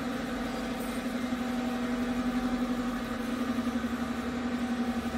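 Steady mechanical hum of a machine running, with one strong low tone and a light, even pulsing in loudness.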